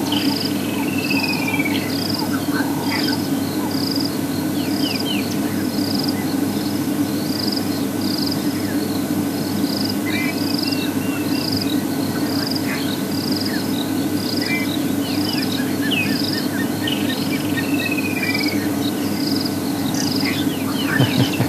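Bush ambience: an insect chirping in an even rhythm, about one and a half high chirps a second, with birds calling now and then, including a falling whistled call about a second in and again near the end, over a steady low drone.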